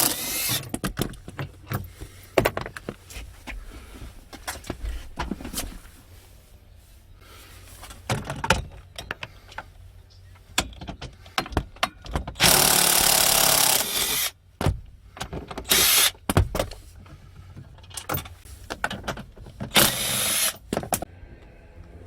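A power tool running in short bursts, the longest about a second and a half, as the rear seats' mounting bolts are undone. Scattered clicks and knocks of metal parts come in between the bursts.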